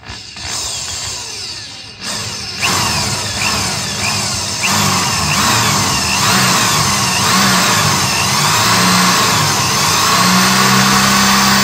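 Corded DeWalt electric drill with a half-inch cobalt bit boring slowly through a metal trailer frame. The motor runs steadily and gets louder about two seconds in, its pitch sweeping up and down again and again as the bit loads and frees in the metal.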